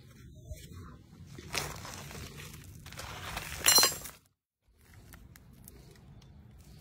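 Loose rock and gravel crunching and clinking as stone is handled at a rock outcrop, with a louder, sharp crunching rattle a little over halfway in. The sound cuts out for about half a second just after.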